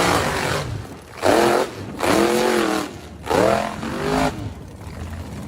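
Off-road vehicle engine revved hard three times, each rev rising and then falling in pitch, over a rushing noise.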